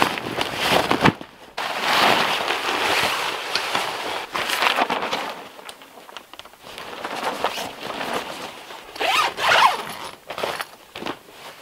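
Nylon fabric of a Gazelle pop-up hub tent rustling and swishing as its walls are popped out and the roof fabric is pulled into place. It comes in several bursts, the loudest about nine seconds in.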